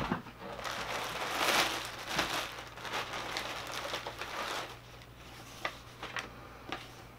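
Plastic bag crinkling and rustling as it is handled and opened, loudest about a second and a half in. Near the end come a few short rustles of a sheet of paper being handled.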